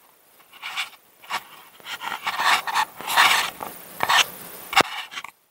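Muffled rubbing and scraping picked up through an action camera's waterproof housing as it is handled, in irregular rasping bursts. A sharp click comes near the end, and then the sound cuts off suddenly.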